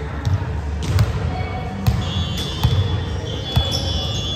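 Indoor volleyball play on a gym court: the ball is struck or hits the floor about five times in sharp smacks, with sneakers squeaking on the court partway through.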